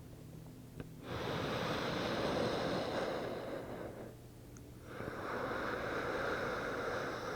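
Slow, deep yoga breathing: two long breaths, each about three seconds.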